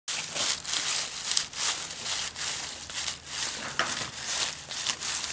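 Rapid, irregular crinkling and crunching noise, a few sharp bursts every second, recorded close up as a Foley effect.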